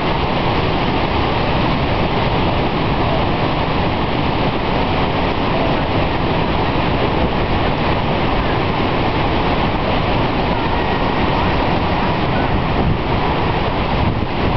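Niagara's Horseshoe Falls: a steady, dense rush of water pouring over the brink, heard close up and unbroken throughout.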